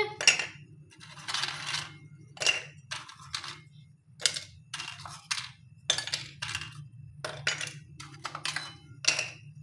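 Glass chopper bowl and its parts being handled: a quick series of clinks, knocks and scrapes of glass and plastic, with one longer scrape about a second in.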